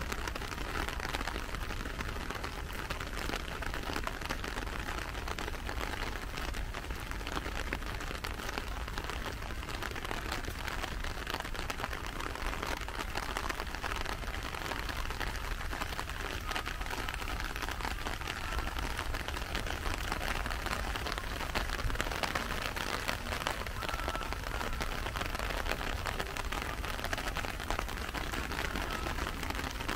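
Steady rain: a dense, even patter of raindrops.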